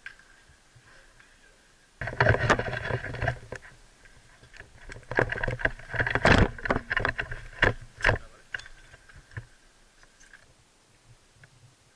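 Footsteps of a player moving fast over sand and brick rubble, with gear rattling and wind buffeting the helmet-camera microphone, starting suddenly about two seconds in and dying away after about eight seconds.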